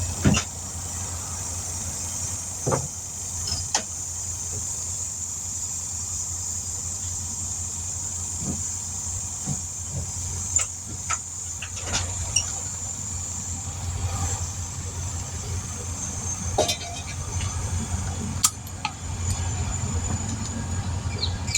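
Old truck-mounted portable air compressor running steadily with a low hum and a high whine, scattered clicks over it; it cuts off suddenly at the very end. The owner thinks its bearings are worn out.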